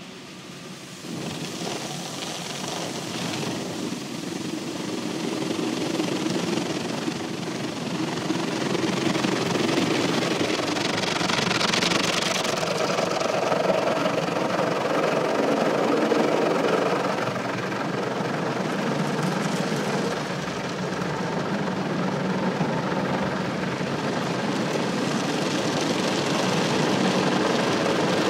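Automatic car wash heard from inside the car: rotating brushes and water spray sweeping over the windscreen and bodywork, a loud steady rushing sound that grows louder about a second in.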